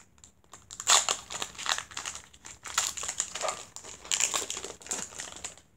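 Foil Pokémon card booster pack being torn open and crinkled by hand: a run of irregular crackly rustles, loudest about a second in.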